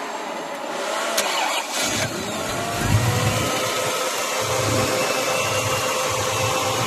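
A 1969 Mustang's 351 Cleveland V8 starting: a couple of seconds of cranking with clicks, then the engine catches about two seconds in and settles into an uneven, low idle rumble.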